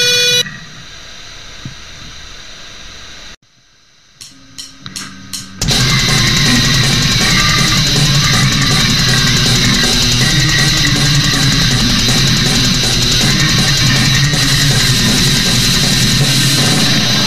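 Extreme metal band recording: one song ends abruptly, a quieter stretch and a short gap follow, then a few sharp hits lead into the next song, with fast, dense drumming and heavily distorted guitars.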